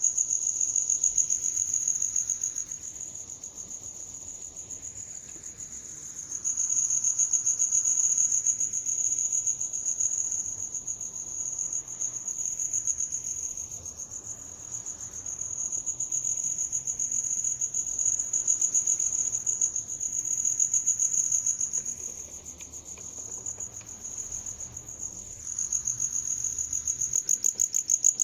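A cricket chirping in a continuous high-pitched trill, swelling and fading in loudness every several seconds.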